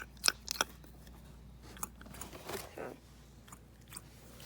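Snapper fidget toy clicking: three sharp snaps in quick succession within the first second, then a few softer clicks and handling rustles.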